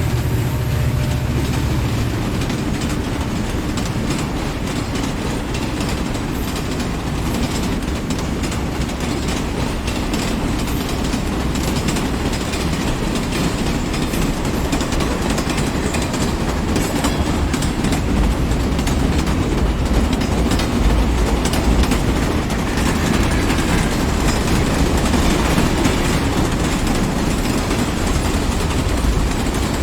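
Train wheels running over the rails with a steady rumble and a continuous clickety-clack of clicks from the track. A low drone dies away about a second and a half in.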